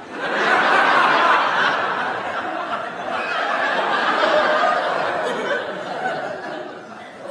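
Studio audience laughing, breaking out suddenly at the start, swelling again midway and then slowly dying down.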